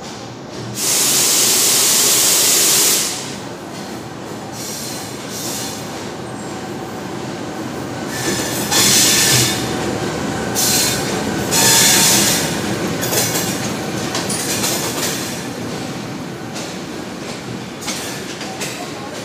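Greenline Express passenger train passing along the platform: a diesel locomotive, then a long string of coaches, rumbling and clattering past. There is a loud rushing burst about a second in, and several shorter bursts of hiss around the middle.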